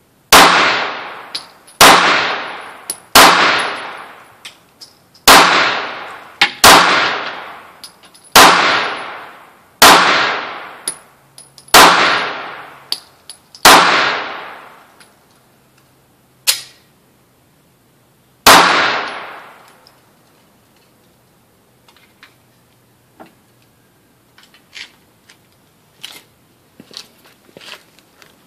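SCCY CPX-1 9mm pistol fired ten times at an uneven pace of roughly one shot every one to two seconds, with a longer pause before the last shot. Each shot is a sharp crack that dies away over about a second. A few light clicks and knocks follow near the end.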